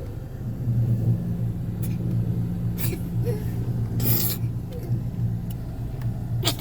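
A steady low rumble, with a few short rustling noises in the middle and a sharp click near the end.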